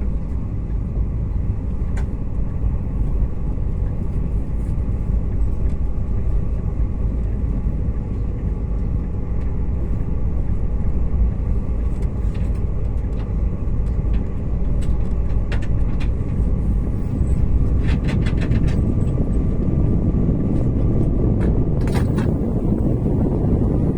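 KTX high-speed train running at speed: a steady low rumble, with a few faint ticks and a quick run of clicks about three-quarters of the way through.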